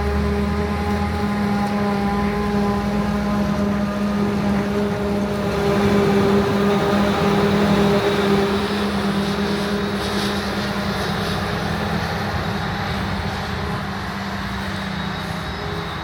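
Diesel engine of large farm field machinery running steadily under load, a little louder near the middle and easing off toward the end.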